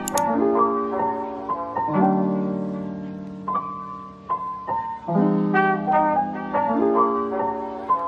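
Instrumental background music led by piano, with held chords under a melody that repeats every few seconds. A short sharp click sounds right at the start.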